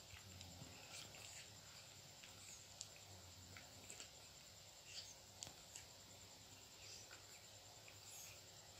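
Near silence with faint, scattered small clicks and smacks of a baby monkey sucking milk from a bottle teat.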